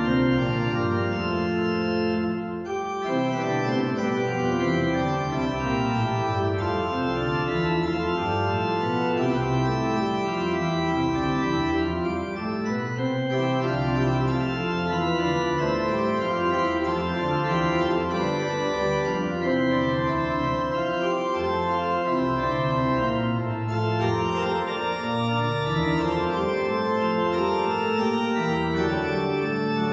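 Church organ playing a slow piece in sustained chords that change every second or so.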